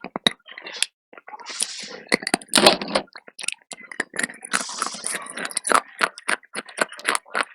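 Slate pencil being bitten and chewed close to the microphone: rapid sharp cracks and gritty crunches, the loudest crunch about two and a half seconds in.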